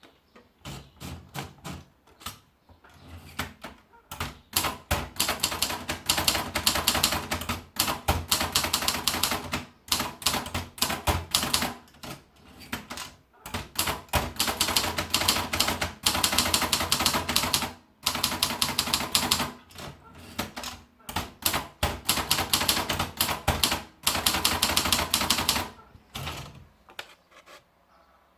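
Torpedo 10/30 manual typewriter being typed on: rapid runs of sharp key and typebar strikes with brief pauses between runs, stopping near the end.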